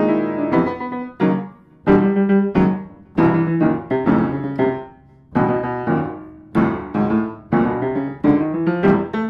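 Solo piano music: groups of chords and notes struck and left to ring and fade, a new group starting every second or so with brief lulls between.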